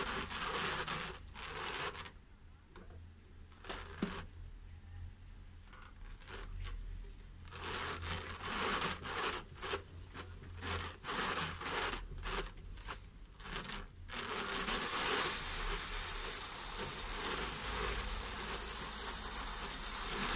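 Fibre being worked on a large hand-cranked drum carder: short rubbing, tearing strokes as the fibre is pulled and laid on, then from about fourteen seconds in a steady brushing hiss as the drum is turned and the carding cloth combs through the fibre.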